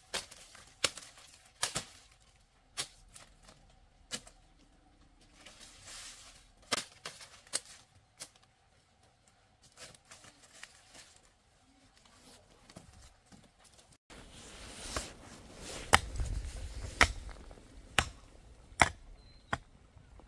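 Irregular sharp knocks and taps, a few every couple of seconds, with an abrupt break about fourteen seconds in followed by a busier, rustling stretch with stronger knocks.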